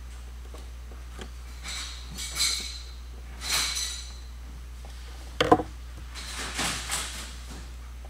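Handling noise as screws are refitted to the base of a Panasonic Toughbook CF-30 laptop: a few soft scraping swishes and a sharp double clack about five and a half seconds in.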